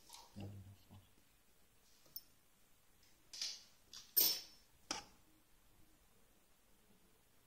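Clicks and scrapes from hands shifting the rubber-roller bracket of a PTFE tape machine: one sharp click about two seconds in, then three louder clicks between about three and five seconds in.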